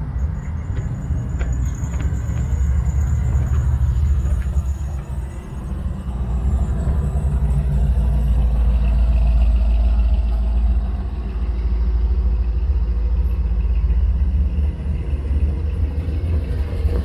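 Classic cars driving past one after another, engines giving a low, steady rumble that swells as each passes.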